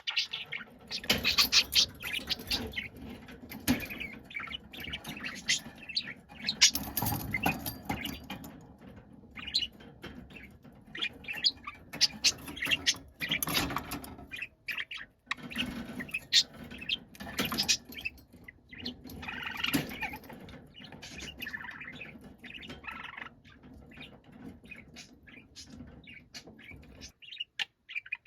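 Budgerigar chattering and chirping: a busy run of short calls, squeaks and squawks that stops about a second before the end.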